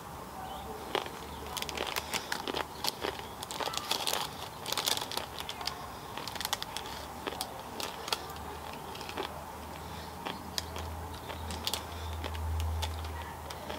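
Crisp, irregular crunching and crackling of a tortilla chip being bitten and chewed, mixed with crinkling of its foil wrapper in the hand.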